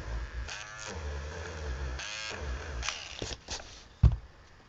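Battery-powered electric eraser buzzing as it rubs out a pencil mark on paper, with two stronger passes about half a second and two seconds in. The buzz stops around three seconds in, and a single sharp knock follows about a second later.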